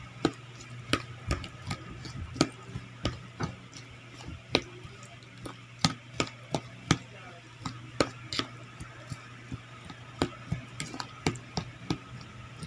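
A metal spoon stirring a chili-and-onion soy sauce in a ceramic bowl, clinking against the bowl's sides in irregular taps about once or twice a second, over a steady low hum.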